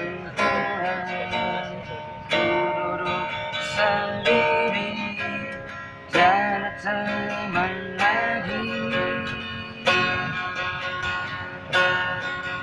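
Acoustic guitar strummed in an instrumental passage of a pop ballad. A chord is struck about every one and a half to two seconds and left to ring, and the chords change as it goes.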